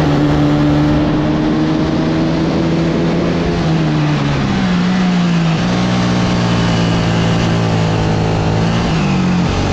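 Sodikart RX250 rental kart engine heard from on board at high revs, its pitch slowly rising along the straight. About four seconds in the revs drop as the kart slows for a bend, then the engine runs steadily at lower revs, with a brief rise and fall near the end.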